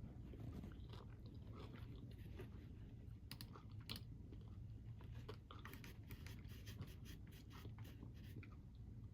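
Person chewing a crunchy snack: faint, scattered crunches and clicks, thicker in the second half, over a steady low rumble.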